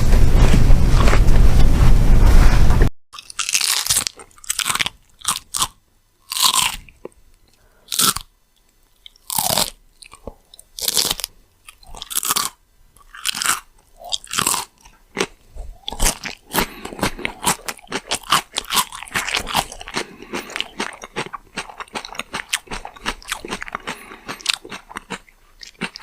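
A loud rushing noise cuts off abruptly about three seconds in. Then come crisp crunching bites of crunchy food, spaced about a second apart, which give way about halfway through to fast, continuous crunchy chewing.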